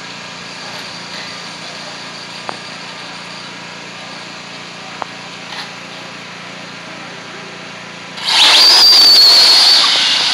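Several radio-controlled on-road cars launch together about eight seconds in: a sudden loud high whine that holds briefly, then fades as the cars speed away. Before that, only a steady low background with a few light clicks.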